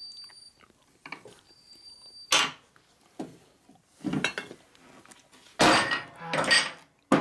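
Metal hand tools clanking and clinking against a steel workbench: about five separate clanks, the later ones with a short metallic ring.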